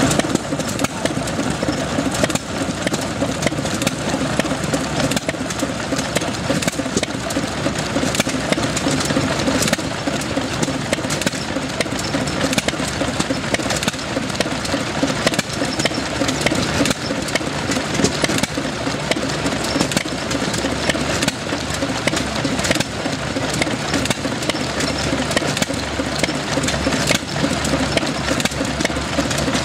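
Small antique stationary gasoline engine running steadily, with repeated sharp exhaust beats over its continuous mechanical clatter.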